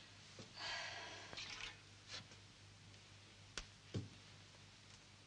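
Quiet rustling of cloth and bedding as someone tends a person lying in bed, then two soft knocks about half a second apart a little past three seconds in.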